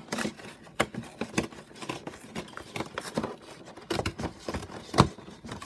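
Cardboard Pokémon collection box being worked open by hand: a run of taps, scrapes and rustles of the cardboard, with one sharp knock about five seconds in.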